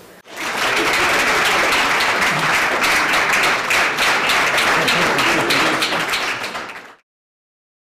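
Audience applauding, many hands clapping together; it stops abruptly about seven seconds in.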